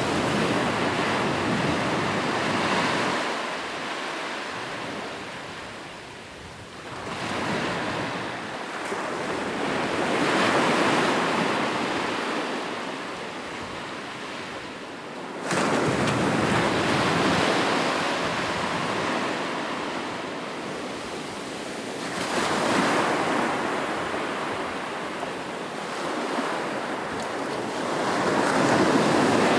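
Sea waves breaking and washing ashore, about six surges one after another, each swelling up and then drawing back; one wave breaks with a sudden rush about halfway through.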